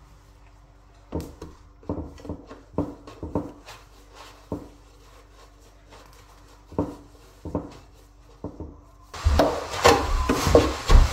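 Balls of soft dough being rounded by hand and set down on a floured wooden board: a series of irregular soft, dull pats and knocks. About nine seconds in, louder handling noise and sharper knocks start as the dough is handled over a metal tray.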